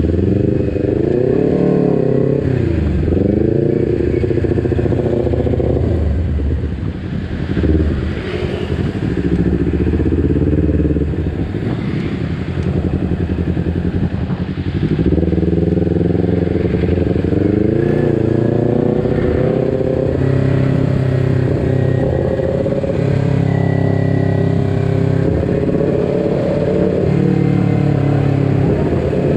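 Kawasaki Ninja 250 Fi's parallel-twin engine, fitted with an R9 aftermarket exhaust, on the move: the engine pitch rises and drops again several times as the bike accelerates and changes gear or eases off, with a short lull about seven seconds in.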